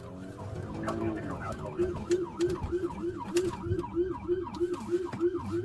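Police car siren on a fast yelp, its pitch rising and falling about four times a second, quickening about two seconds in, over a low vehicle rumble.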